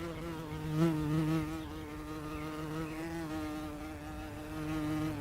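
A steady buzz held at one pitch with a slight waver.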